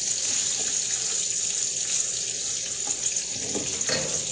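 Food sizzling steadily in a frying pan on the stove, with a few light utensil knocks near the end.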